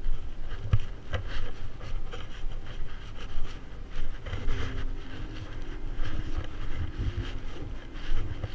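Footsteps through dry grass and the rustle of clothing and gear on a walking bowhunter, with wind buffeting the microphone. A faint steady hum comes in about halfway through.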